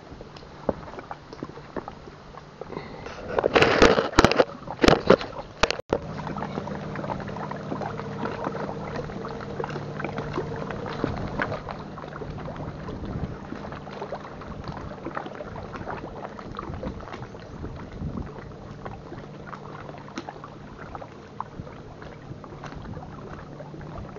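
Steady drone of a distant motorboat engine over wind and lapping water, with a few loud knocks and rustles about four to six seconds in from the camera being handled.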